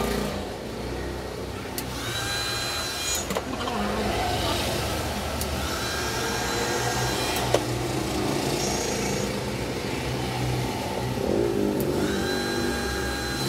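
Background vehicle traffic: engines running steadily, with a few held tones about a second long.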